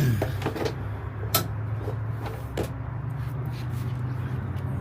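A few light clicks and knocks, the sharpest about a second in, from parts and fittings being handled inside a pickup truck's cab, over a steady low hum.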